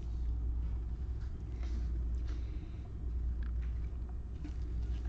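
Steady low hum, with faint scattered clicks and slides of glossy Panini Mosaic football cards being flipped through a stack by gloved hands.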